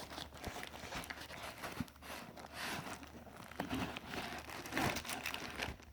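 Packing material, foam among it, being handled and unpacked: continuous crinkling and rustling with small knocks throughout.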